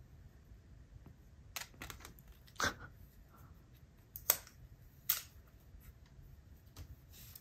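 A handful of short, sharp clicks and rustles at irregular intervals as a new power adapter and its wrapped cable are handled and their protective wrapping is peeled off by hand.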